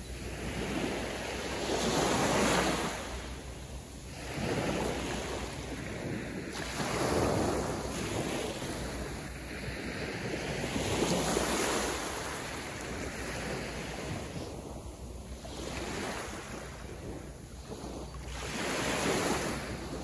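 Small ocean waves breaking and washing up a sandy beach, each swelling and fading every few seconds, with a steady low rumble of wind on the microphone.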